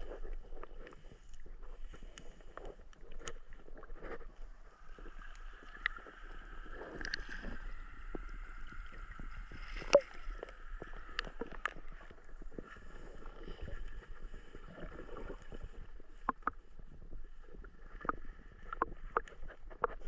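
Water splashing and sloshing, with many scattered sharp clicks and knocks.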